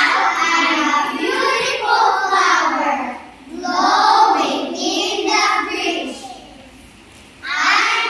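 A group of children reciting an action poem together in sing-song unison, phrase by phrase with short breaks. The voices drop away about six seconds in and start again near the end.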